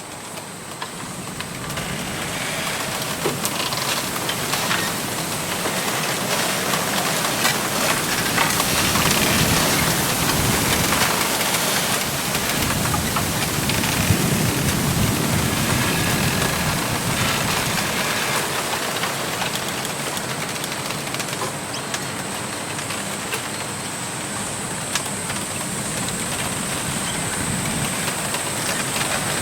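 Wind gusting through a bamboo grove: a steady rush of rustling leaves that swells over the first several seconds and then holds, with scattered light clicks of bamboo stems rubbing and knocking together.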